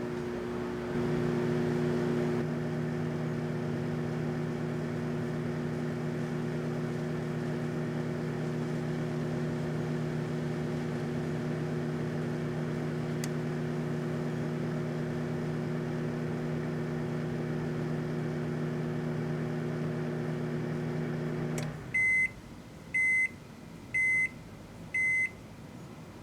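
Microwave oven running with a steady hum, cutting off about 22 seconds in, followed by four short, high end-of-cycle beeps about a second apart.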